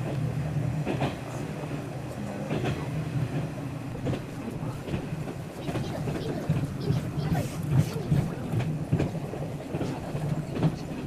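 A diesel passenger train running along the line, heard from inside the carriage. A steady low engine drone mixes with irregular clatter and knocks from the wheels and rail joints.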